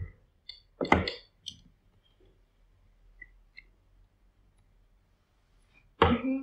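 Plastic Lego bricks clicking as they are handled and pressed together: a few short sharp clicks, the loudest about a second in, and another loud knock near the end.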